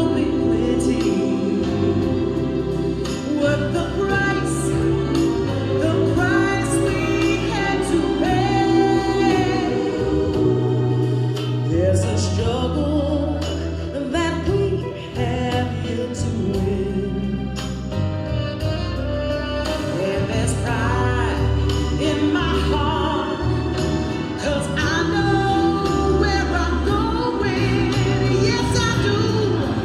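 Recorded song with a singer and a backing choir over a full band, played loud through a hall's sound system.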